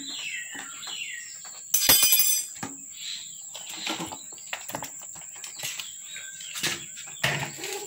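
Clear plastic food trays clicking, crinkling and knocking as they are handled and set down on a tiled floor, with one louder plastic rasp about two seconds in. Small birds chirp in the background.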